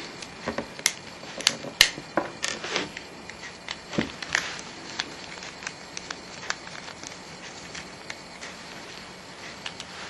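Small clicks and light scraping from a precision screwdriver and fingers working the tiny screws and plastic casing of a mobile phone, closely spaced for the first few seconds and then sparse.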